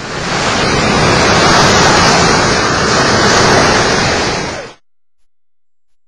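Loud rushing noise with no pitch to it, swelling in at the start, holding steady for about four and a half seconds, then fading quickly and stopping.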